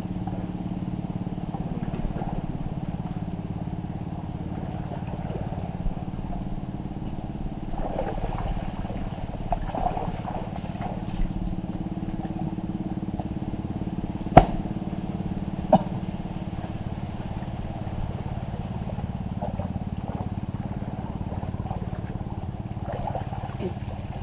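A small engine running steadily at an even speed, with two sharp knocks a little past halfway.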